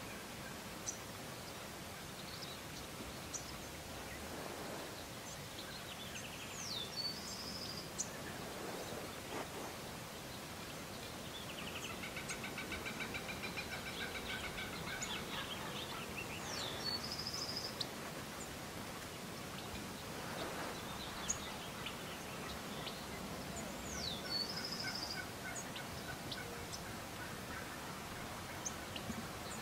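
Gould's wild turkey toms gobbling, a long run of rapid rattling gobbles about twelve seconds in. A small bird's short downward-sweeping call ending in a buzz repeats three times.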